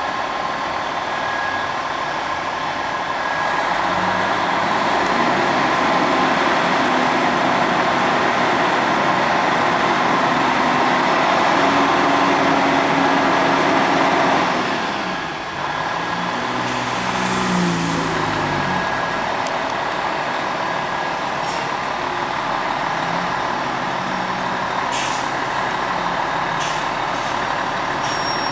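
Fire engine's diesel engine running in the station bay: a loud, steady noise that drops away about fifteen seconds in, followed by a few low wavering tones and some short sharp clicks near the end.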